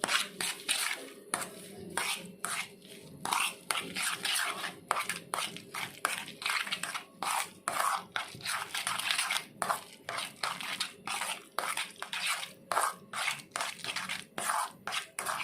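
A spoon scraping and clinking against a bowl in quick, irregular strokes, stirring mashed boiled egg together with mayonnaise, salt and pepper.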